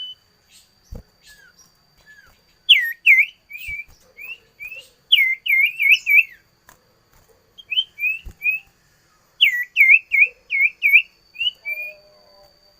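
Songbird singing in three phrases of rapidly repeated swooping whistled notes, each note dipping and rising in pitch, with short pauses between phrases. A faint steady high tone runs underneath.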